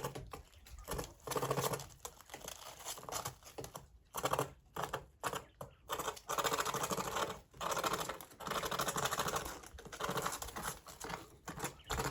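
Coturnix quail pecking, a rapid typing-like tapping that comes in bursts with short pauses between them.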